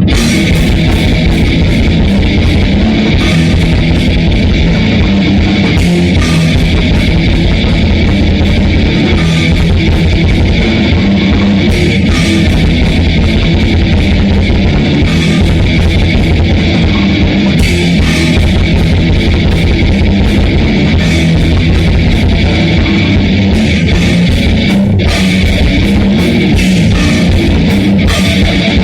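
Grindcore band rehearsing, led by heavily distorted electric guitar, playing loud and without a break.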